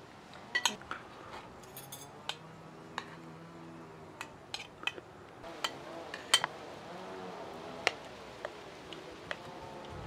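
Metal fork and serving utensils clinking and scraping against a metal serving platter and plate: a scattered series of short sharp clicks, the loudest a little past six seconds in.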